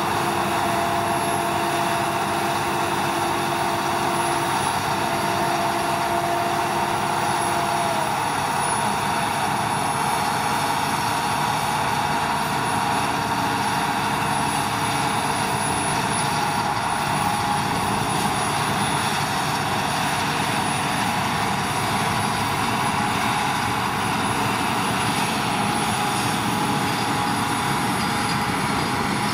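Claas Lexion 670 combine harvester threshing oats and unloading grain through its auger into a chaser bin drawn by a Fendt 724 Vario tractor: steady running of engines and machinery, with a whine that dips and stops about eight seconds in.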